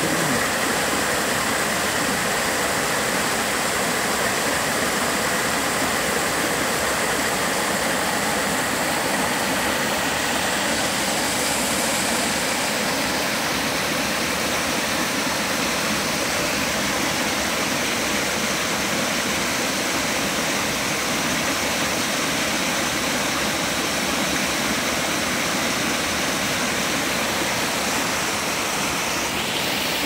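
Water of a rocky stream cascading over and between boulders: a steady rushing sound.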